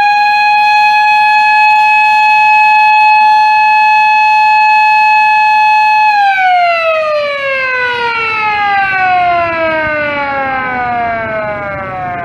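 Ercole Marelli 250 "Marellona" whistle siren giving one long, steady, moderately sharp scream. About six seconds in, it winds down in a long falling glide.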